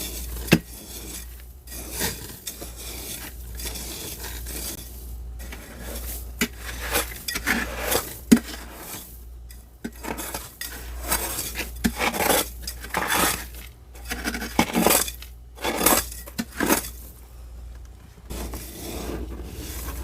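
Thick frost being scraped off the walls of a deep freezer: an uneven run of scraping strokes with sharp clicks and knocks, thickest in the middle stretch.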